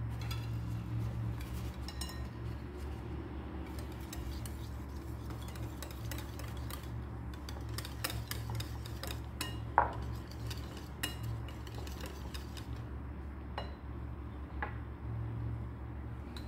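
Stainless steel wire whisk stirring yoghurt and mint purée in a ceramic bowl: soft scraping with scattered clicks of the wires against the bowl, and a sharper ringing clink about ten seconds in. A steady low hum runs underneath.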